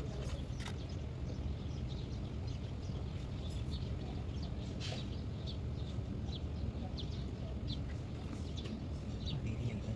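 Small birds chirping over and over above a steady low hum, with a few sharp metallic clicks, one near the start and one about halfway through.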